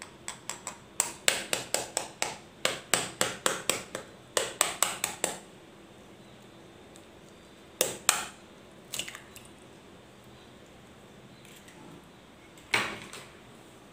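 Knife blade tapping a raw egg's shell: several runs of quick, sharp taps through the first five seconds. Then a few single clicks as the cracked shell is pulled open over a glass bowl.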